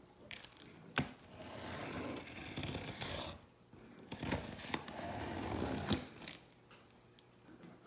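Scissor blade drawn along the taped seam of a cardboard box, slitting the packing tape in two scratchy strokes of about two seconds each. A sharp knock comes about a second in, and another as the second stroke ends.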